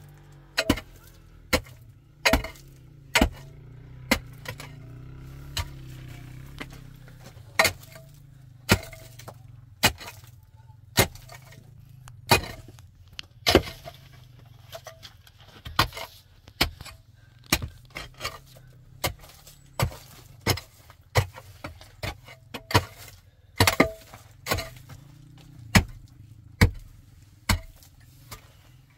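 Pickaxe striking a packed dirt and stone floor, digging with sharp, irregular blows about one a second.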